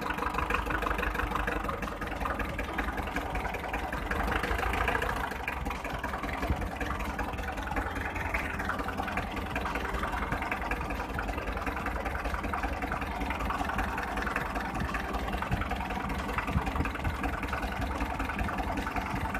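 Four-cylinder diesel engine of a Hyundai 1.25-ton truck idling steadily while misfiring, running rough and shaking with one cylinder (number 3) not firing.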